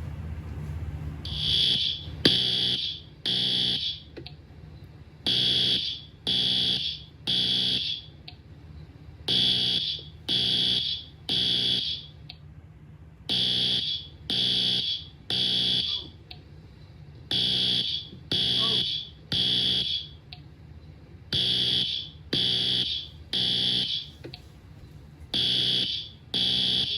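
Fire alarm sounding in the three-beep evacuation pattern: three loud, high beeps, a pause, then three more, repeating about every four seconds.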